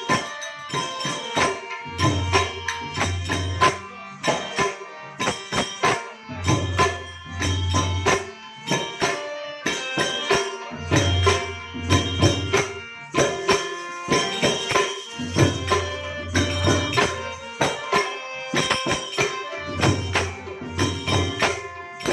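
Instrumental passage of Gujarati santvani devotional folk music: a held melody with a dense, quick percussion beat and a deep bass pulse that comes back every four to five seconds.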